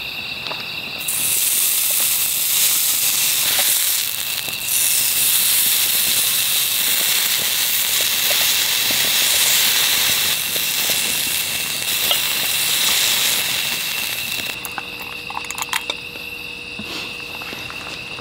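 Beef sizzling on a ribbed grill pan heated by solid fuel. The sizzle starts about a second in, dips briefly around four seconds, and stops near the end. A few small clicks follow.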